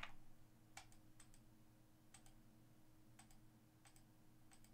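Faint computer mouse clicks, mostly in quick pairs about once a second, as the randomize button is clicked again and again; a low steady hum sits beneath them.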